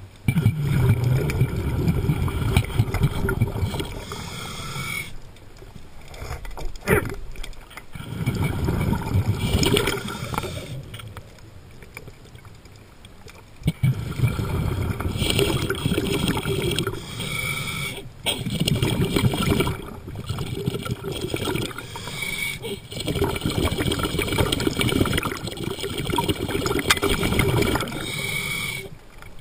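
A diver's underwater breathing: repeated bursts of bubbling and gurgling a few seconds long, with short quieter pauses between breaths.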